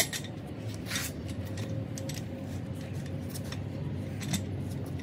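Metal parts and hand tools clinking and scraping: a sharp click at the very start and a few lighter ones after, over a steady low hum.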